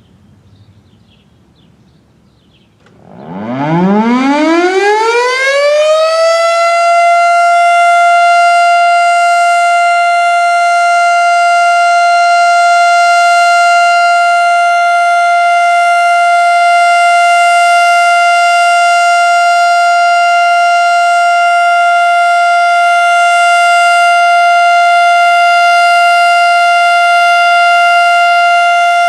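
Federal Signal STH-10A outdoor warning siren starting up about three seconds in, its pitch rising over a few seconds to a high tone that it then holds steady and loud: the steady alert signal of a siren test.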